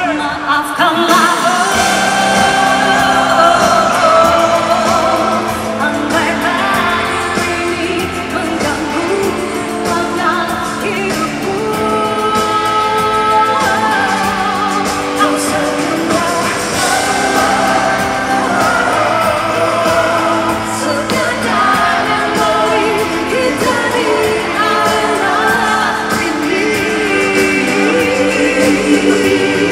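A woman singing a pop song live, with band and string accompaniment.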